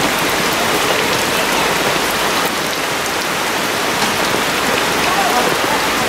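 Steady rain falling on wet ground and puddles, an even hiss of many drops.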